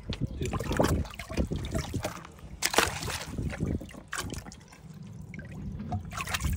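Water splashing and sloshing in a boat's livewell as a hand handles a trout and the fish stirs the water, in irregular splashes with a louder one near the middle.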